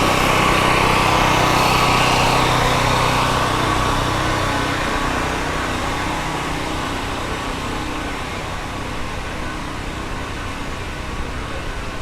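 Street traffic: a motor vehicle's engine running steadily nearby, loudest in the first few seconds and fading away after about six seconds, over the general hum of city traffic.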